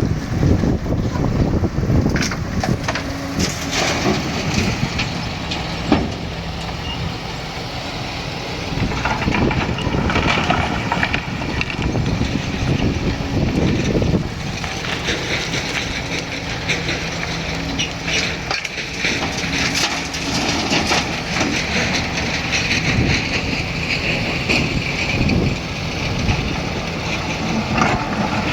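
Hydraulic excavator's diesel engine running under load as it works, rising and falling, with scattered knocks and scraping from the bucket and material.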